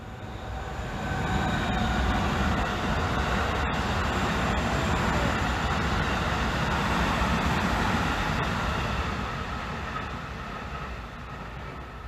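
An electric commuter train passes over a railway level crossing: the rumble and rail noise build about a second in, hold steady, then fade near the end. The crossing's warning bell rings quietly beneath it.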